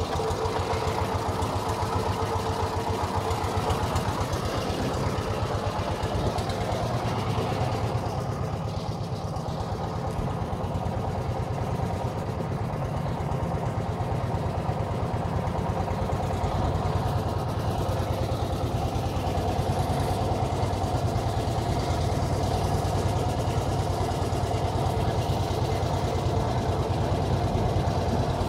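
A boat's engine running steadily, an even low hum with a few higher tones held through.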